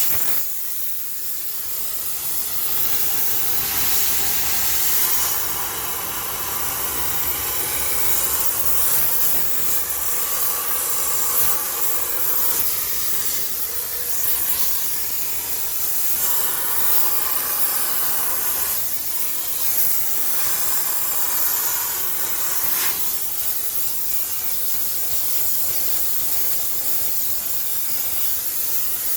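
High-pressure steam sterilizer jetting steam with a steady loud hiss, its tone shifting now and then, as it sanitizes a washing machine.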